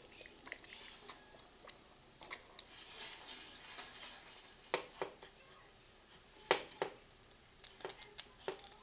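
Wire whisk stirring thick gravy in a glass saucepan: irregular clicks and taps of the wires against the glass, with a few louder knocks a little past the middle.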